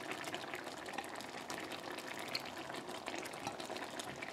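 Potato and fish stew simmering in saffron fish broth in a pan: a steady low bubbling with many small pops.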